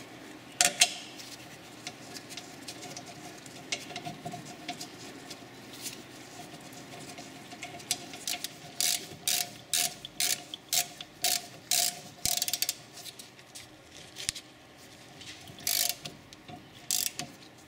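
Hand ratchet wrench clicking in short repeated bursts, about two a second, as it runs a brake caliper bolt in; this starts about halfway through. A sharp metal clink comes less than a second in.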